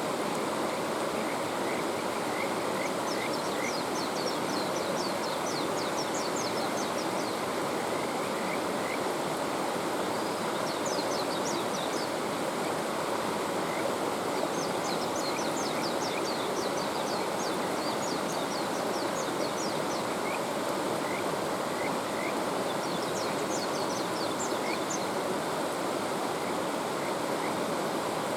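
Mountain stream flowing steadily, with kajika frogs (Buergeria buergeri) calling over it in several bouts of quick, high, rising chirps a few seconds apart.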